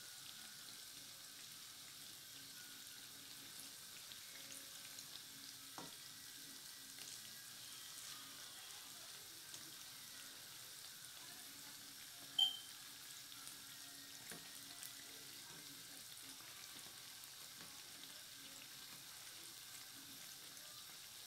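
Lentil-batter fritters (dahi bara) deep-frying in oil over a medium flame: a faint, steady sizzle with light crackles. A single short, high ping is heard about twelve seconds in.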